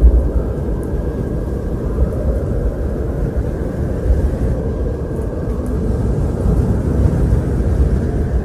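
Wind blowing steadily, a deep rushing noise that rises and falls only slightly.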